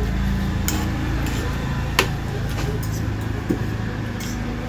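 A metal fork and spoon clink against a ceramic plate as noodles are eaten, with a few light clicks and one sharp clink about two seconds in. A steady low hum runs underneath.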